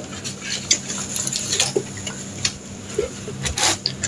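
Scattered light rustles and small knocks as a paper fast-food bucket, its wrappers and the plastic carrier bag around it are handled, over a low steady hum.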